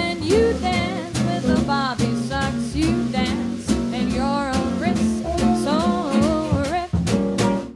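Small swing jazz band playing: gypsy-jazz acoustic guitar, double bass and drums keep a steady swing beat under a sliding lead melody line.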